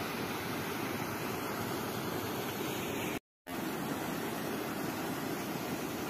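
Floodwater pouring over a concrete dam spillway, a steady rushing noise from water spilling across the full crest after heavy rain. The sound cuts out completely for a fraction of a second a little past three seconds in.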